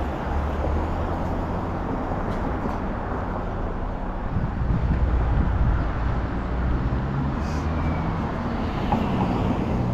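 Road traffic noise: nearby car engines running with a steady low hum.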